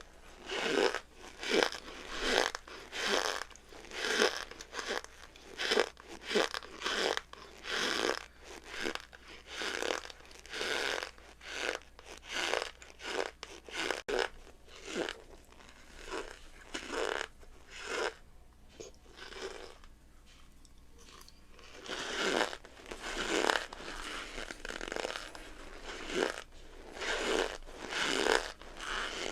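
Cornstarch being squeezed and pressed, giving a repeated creaking crunch about one and a half to two times a second, with a lull of a few seconds past the middle.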